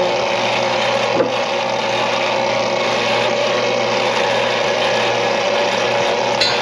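Drain-cleaning machine's motor running steadily while the plugged kitchen stack is being cleared, a constant hum with hiss.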